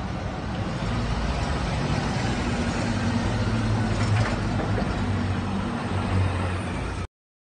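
A vehicle engine running low and steady amid city street noise, cutting off abruptly near the end.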